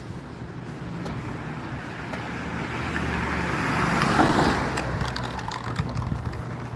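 A car passing by on the road: engine and tyre noise swell to a peak about four seconds in and fade, over a steady low traffic hum.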